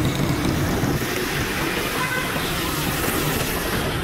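Steady ride noise from a motorcycle moving through city traffic: the engine running under a constant rush of noise, without breaks or sudden events.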